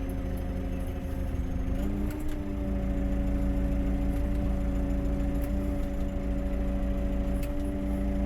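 Case CX100 tractor's diesel engine idling steadily, its engine speed stepping up slightly about two seconds in and then holding, with a few faint clicks.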